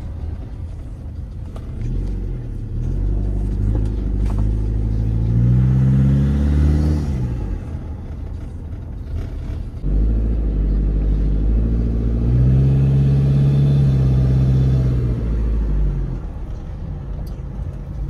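Engine of a 2015 Toyota Innova automatic, a 2.5-litre four-cylinder turbodiesel, heard from inside the cabin while driving. It pulls up in pitch twice under acceleration, each pull ending as the revs drop away; the second starts abruptly.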